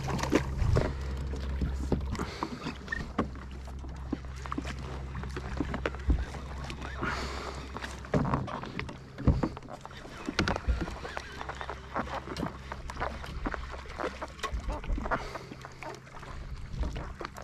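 Water slapping and sloshing against a fishing kayak's hull, with scattered short knocks and clicks of gear against the boat.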